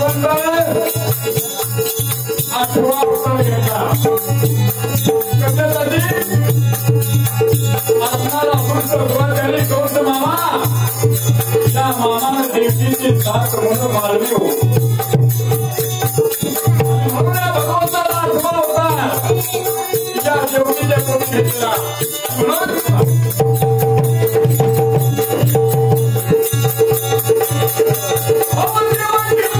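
Marathi folk shahiri music: a man singing over a steady held drone, with a constant shaken rattle-and-jingle rhythm underneath. The voice breaks off briefly about two thirds of the way through while the drone and rattle carry on.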